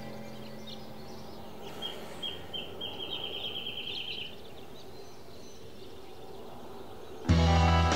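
Outdoor background noise with a small bird chirping: a few single chirps, then a quick even run of high chirps about three seconds in. Music with guitar and drums comes in loudly near the end.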